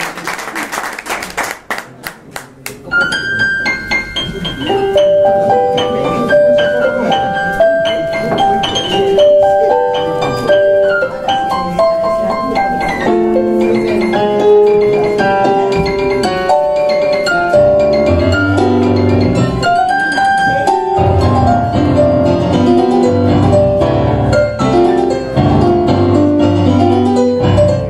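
Applause dying away, then a tango played as a duet on two digital pianos, one a Kawai MP6 stage piano. A melody starts alone, and lower chords and bass join about halfway through, making the playing fuller.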